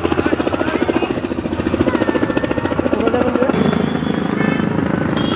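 Helicopter's main rotor beating in a fast, steady pulse, with the turbine running underneath.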